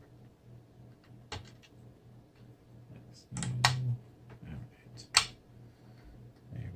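Plastic LEGO bricks clicking as small pieces are handled and pressed together: a few sharp clicks, the loudest about five seconds in.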